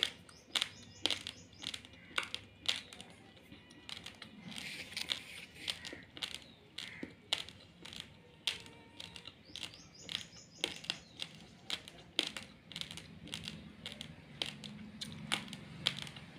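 Raw long-grain rice being chewed: sharp, crisp crunches about one or two a second, with softer gritty grinding between them.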